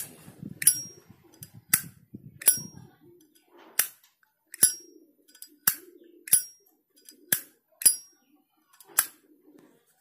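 Hinged lid of a brass Zippo-style lighter (a high-grade replica) repeatedly flipped open and snapped shut: about eleven sharp metallic clicks, irregularly spaced, several with a short high ring, the lighter's characteristic clink.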